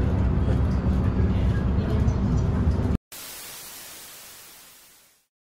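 City bus running, heard from inside the cabin: a steady engine and road rumble. About three seconds in it cuts off sharply and a hiss like static takes its place, fading away over about two seconds.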